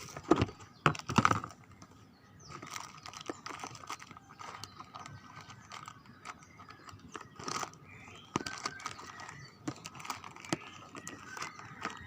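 Scattered clicks, knocks and plastic rustling of small items being handled and moved about, with the sharpest knocks in the first second and a half and a few more later on.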